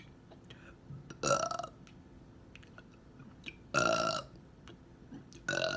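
A woman burping three times, each burp short and pitched, a couple of seconds apart, brought up by drinking carbonated grape soda.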